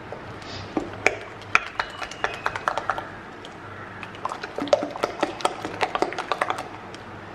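Thick yeasted waffle batter being mixed by hand in a glass bowl, just after baking soda has been added: quick, irregular wet clicks and taps, with a few light knocks against the glass that ring briefly.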